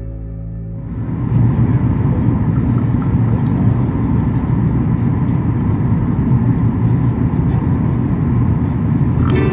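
Soft ambient music fades out about a second in, giving way to the steady low rumble of an airliner's passenger cabin in flight.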